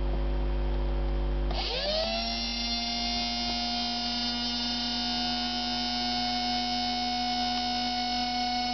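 Universal-3 benchtop lathe running with a steady motor whine. About one and a half seconds in, its pitch sweeps up and settles at a new steady speed.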